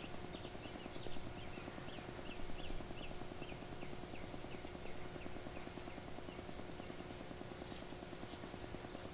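A songbird calling a run of short down-slurred notes, a few a second, that fade out about six seconds in. Under it runs a steady low hum with a fast flutter.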